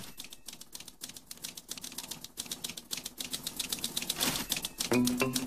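Rapid typewriter clacking that grows faster and louder, with a short swish near the end, as pitched music comes in just before the end.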